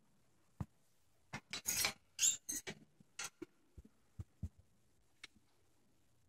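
Pet ferrets moving about on blanket bedding close to the microphone: a quick run of short hissy scuffles and rustles about one and a half seconds in, then scattered light clicks and taps.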